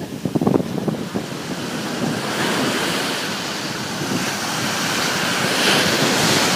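Sea surf breaking and washing up a sandy beach, with wind buffeting the microphone; it grows a little louder near the end.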